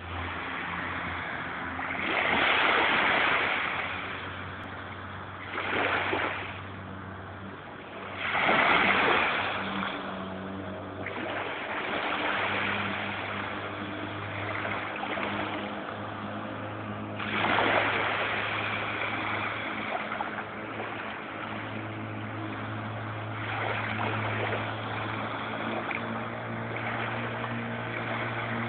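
Small waves washing up on a pebbly beach, swelling in a surge every few seconds. A steady low hum runs underneath.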